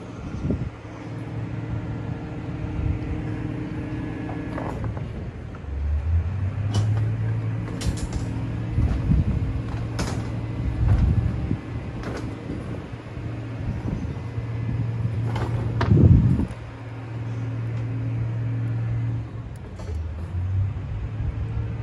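A nearby engine running steadily with a low hum, its speed stepping up and down several times. Scattered sharp clicks and knocks cut across it, the loudest a knock about 16 seconds in.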